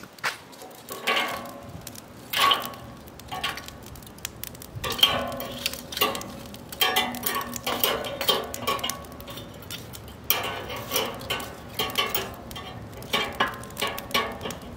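Metal tongs shifting lump hardwood charcoal under the cooking grate of a Weber kettle grill: a run of clinks, knocks and scrapes of metal against charcoal and grate, some with a short ring.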